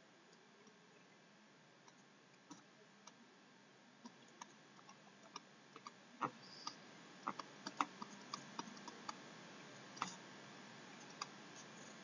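Faint, irregular clicks of a pen stylus tapping on a tablet screen during handwriting, sparse at first and more frequent from about four seconds in.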